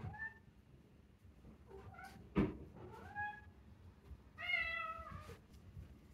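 Domestic cat meowing several times in short calls, the longest meow near the end, with one sharp knock about two and a half seconds in.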